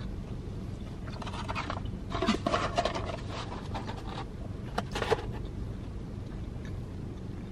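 Cardboard sandwich box and its paper handled and closed, rustling and scraping for about three seconds, then two sharp clicks about a second apart. A low steady hum sits underneath.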